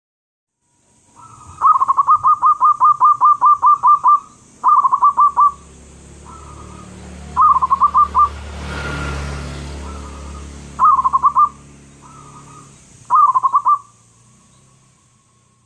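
Zebra dove (perkutut) cooing: a long run of about thirteen quick, evenly repeated coo notes, then four shorter bursts of a few notes each. A low rumble swells and fades midway.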